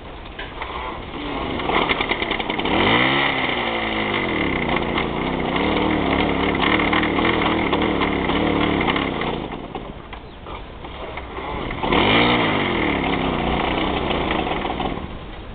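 Piaggio Ciao moped's small two-stroke engine being pedal-started from cold in frost. It catches about two seconds in, revs and runs until it drops away about ten seconds in. It catches again about two seconds later and runs briefly before dropping away near the end. The start is a little stiff because of the frost.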